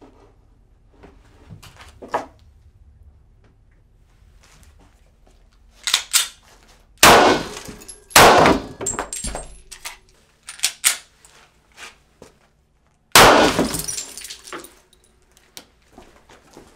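Three 9mm full-metal-jacket pistol shots: two about a second apart, the third some five seconds later, each a sharp crack with a short echo. Before them come light knocks and clatter as the target is set on the table.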